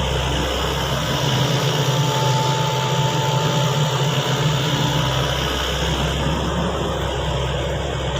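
Sany excavator's diesel engine running steadily, with a faint high whine for a couple of seconds near the start.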